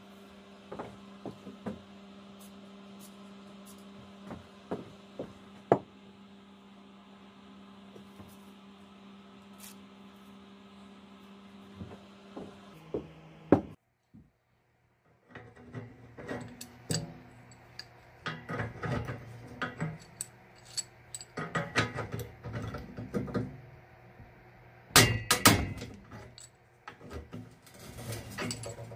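Scattered knocks, clanks and clinks of hand tools working the wooden handle on an old crosscut saw, over a steady electrical hum. Partway through the sound cuts out briefly, then the knocking and clinking come thicker and louder, with a pipe wrench on the handle's cap near the end.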